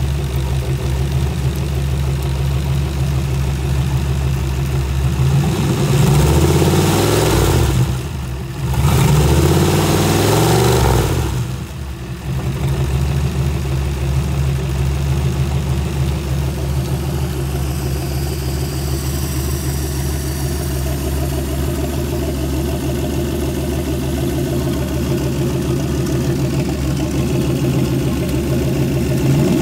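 A 1962 Oldsmobile Jetfire's turbocharged 215 aluminium V8 is running on an engine stand through open exhaust pipes. It idles steadily and is revved twice, at about six and nine seconds in, each time rising and falling back before it settles to idle again.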